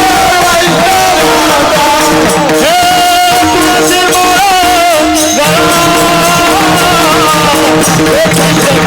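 A man singing a devotional melody in long, ornamented notes that bend and waver, over a steady held drone accompaniment.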